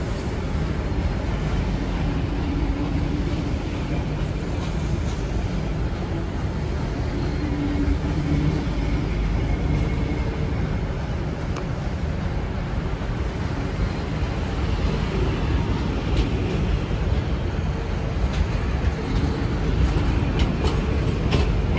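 Heritage passenger carriages rolling past along a platform: a steady rumble of wheels on the rails, with a few sharp clicks scattered through and a little louder toward the end.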